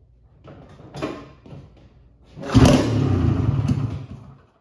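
1978 Polaris Cobra 440 snowmobile's two-stroke engine being pull-started cold on the choke: about two and a half seconds in it fires and runs for about two seconds, then stops.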